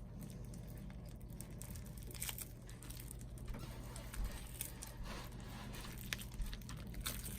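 Slime being kneaded and squished by hand: faint, irregular sticky crackles and small pops as it is worked.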